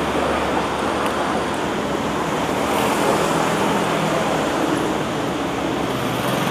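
Steady road traffic noise, with a faint low hum of engines under it.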